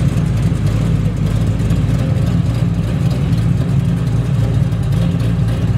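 Twin-turbo 540 cubic-inch big-block V8 of a 1955 Chevrolet Bel Air idling with a steady, loud, low rumble as the car creeps along at walking pace.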